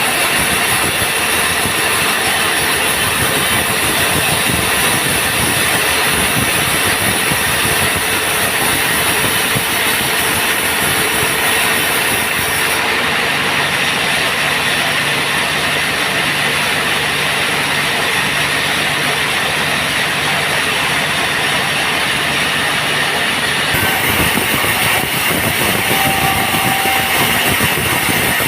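Band sawmill running steadily, its blade cutting a teak log with a continuous loud mechanical noise. The high hiss cuts out abruptly about halfway through and comes back near the end.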